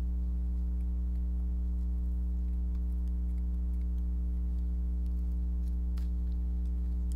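Scissors snipping through a molded bra's fabric and strap, heard as a few faint scattered clicks over a steady low electrical hum.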